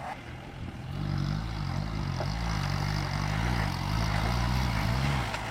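An off-road vehicle's engine runs low and steady, then picks up about a second in, its revs rising and falling unevenly as it works.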